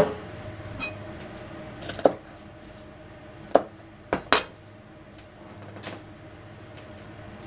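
Kitchen knife and cutting boards knocking on the counter: about six separate sharp clacks, two close together about four seconds in as a shiso leaf is cut, over a faint steady hum.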